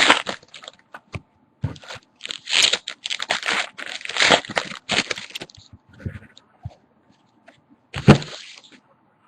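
Irregular crinkling and crunching of handled packaging, in quick bursts through the first five seconds or so, then sparser, with one louder burst about eight seconds in.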